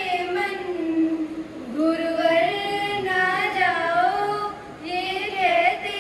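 A high voice singing a slow melody, holding long notes with gentle rises and falls, in phrases broken by brief pauses about two and five seconds in.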